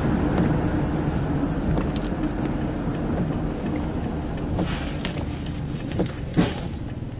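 Steady road and engine noise from inside a car on a wet highway, growing quieter as the car slows from highway speed. Two short, sharp knocks come near the end.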